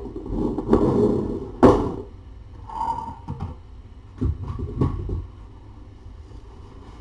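Handling noises: rustling for the first couple of seconds, with a sharp knock near its end, then a few lighter knocks, as things are moved about by hand.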